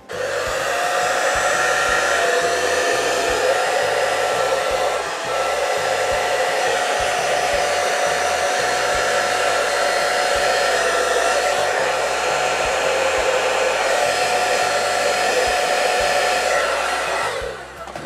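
Hot Tools hair dryer running on high, a steady rush of air with a whine from its motor and fan. It dips briefly about five seconds in and sags almost to a cut-out near the end before picking up again: the intermittent cut-out that cleaning the lint from its filter has not cured.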